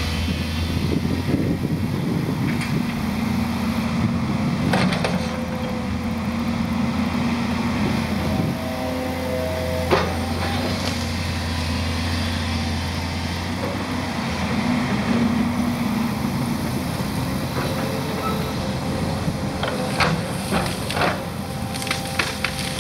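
Volvo 210 excavator's diesel engine running steadily under working load, with a higher whine coming and going as the boom moves. A sharp knock about ten seconds in, and branches cracking and snapping near the end as the bucket drives into the brush.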